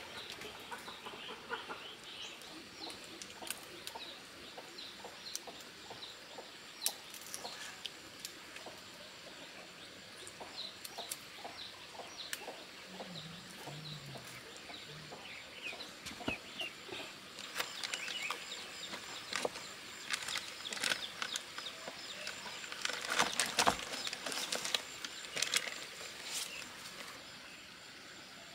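Chickens clucking on and off, with rustling and light clicks from handling leaf strips and fish as they are tied onto a bamboo drying pole; the handling sounds grow busier in the second half.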